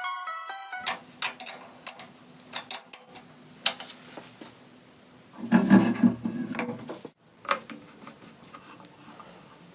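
Music ends about a second in, followed by scattered clicks, knocks and scraping from hand work on metal parts, with a louder stretch of rubbing around the middle.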